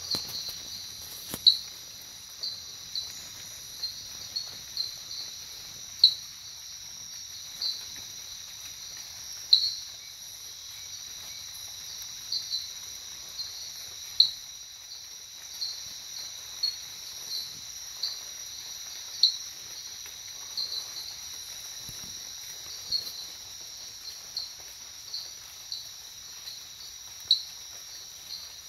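Night-time insect chorus: a steady high-pitched drone with short, sharp chirps scattered irregularly over it, a few of them much louder than the rest.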